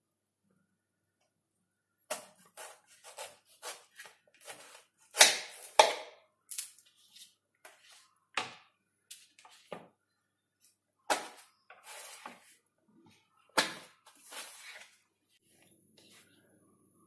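A kitchen knife chopping through firm raw green mango and knocking on a plastic cutting board: an irregular run of sharp chops and clicks that starts about two seconds in, with a few louder strikes among them.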